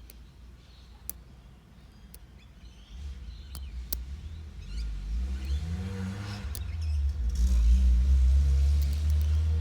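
A motor vehicle's engine rumble builds from about three seconds in and is loudest near the end. Faint sharp clicks of lock picks working in a padlock are heard throughout.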